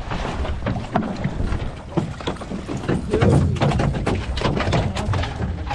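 Small open fishing boat under way while trolling: its motor running, with water splashing against the hull and wind buffeting the microphone.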